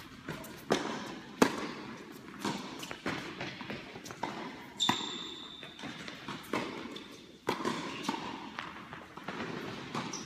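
Tennis rally in an echoing indoor hall: sharp racket strikes and ball bounces at irregular intervals, each followed by a short reverberant ring.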